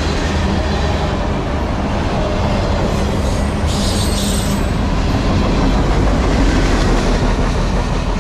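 Freight train cars rolling past on the rails: a steady, loud rumble of wheels on track, with a brief high wheel squeal about four seconds in.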